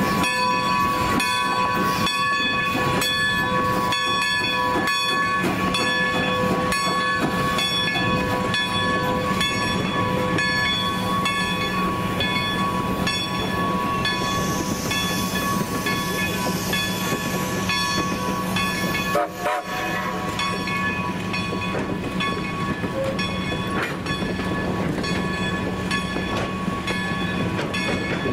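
Railroad crossing bell ringing steadily with evenly repeated strikes as No. 90, a 2-10-0 Decapod steam locomotive, rolls past with its passenger train. A higher hiss rises in the middle, and the sound drops out briefly about two-thirds of the way through.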